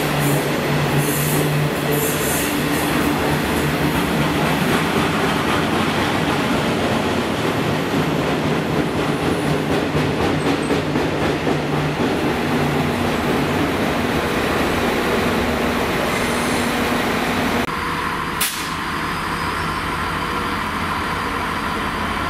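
A long train of freight wagons loaded with steel rolling past close by, the wheels clattering on the rails. About eighteen seconds in the noise drops suddenly to a quieter steady hum, with one sharp click soon after.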